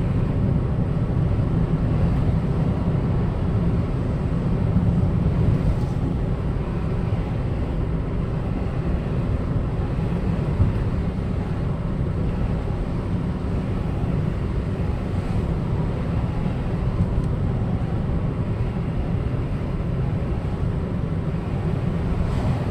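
Steady low rumble of road and wind noise from a moving vehicle, with no siren plainly standing out.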